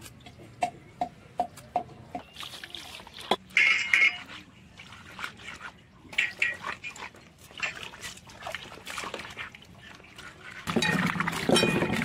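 Hands scraping and rubbing burnt skin off roasted snakehead fish, a series of short scrapes and clicks, then handling the fish with rustling and wet sounds. Near the end, water sloshing and splashing loudly as the fish are rubbed clean in a metal bowl of water.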